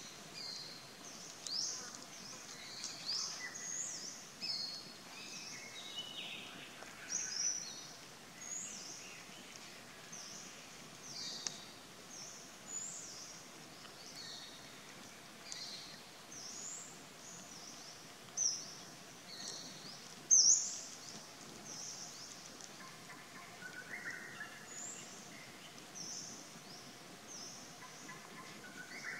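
Forest birds chirping: many short, high-pitched calls scattered throughout, with two louder ones about two-thirds of the way through, over a faint steady hum.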